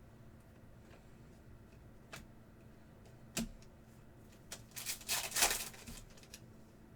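2024 Bowman Chrome baseball cards being handled: a couple of sharp clicks, then about a second and a half of cards flicking and sliding against each other near the end.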